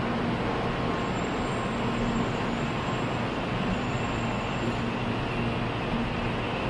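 N700-series Shinkansen pulling out of the station, its cars running past close by with a steady rushing rumble. A faint high whine sits over it from about a second in.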